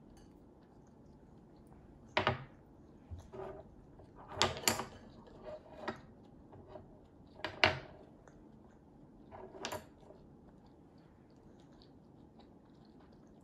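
A few light knocks and clinks of a child's spoon and dishes on a wooden table, scattered over the first ten seconds, with quiet in between.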